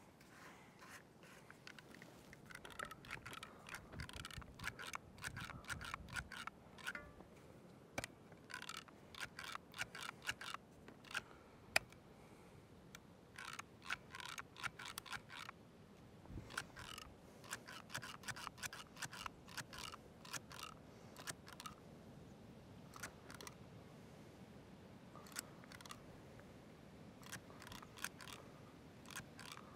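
Manual caulk gun being squeezed over and over: faint runs of quick clicks as the trigger ratchets the plunger rod forward, with pauses between runs, pushing seam sealer into the pipe-boot flashing. The gun is new and stiff, so it takes many squeezes.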